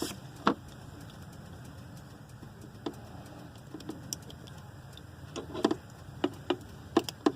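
Scattered light clicks and taps at irregular spacing, from test leads and wire connectors being handled while a taillight is hooked up to a power supply, with a small cluster of them past the middle.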